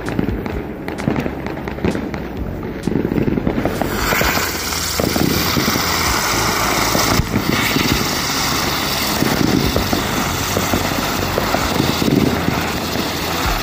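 Several Smile Face Spinner ground-spinner fireworks hissing and crackling on paving. About four seconds in, the fizz swells into a steady, louder hiss as more of the spinners get going.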